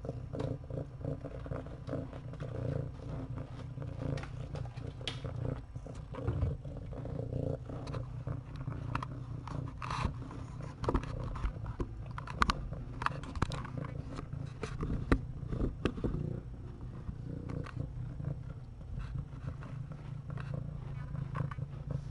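Cat purring steadily close to the microphone: a continuous low rumble, with scattered soft clicks and rustles over it.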